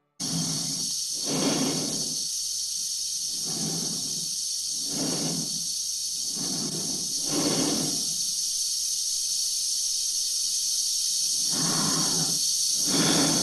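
Steady hiss of a spacesuit's air supply with an astronaut's slow breaths inside the helmet, one every one and a half to two seconds, pausing for a few seconds before the last two.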